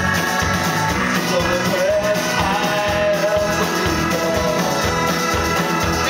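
Live rock band playing a song: acoustic and electric guitars, keyboard and drums, with a male lead vocal singing over them.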